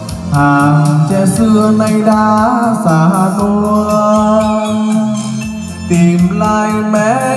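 Recorded music with a gliding, voice-like lead melody, a bass line and a steady beat, played loud through PA loudspeakers and a subwoofer driven by an MC CA9 power amplifier.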